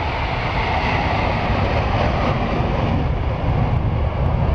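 Jet noise from a MiG-29 fighter's engines: a loud, steady rumble that grows louder.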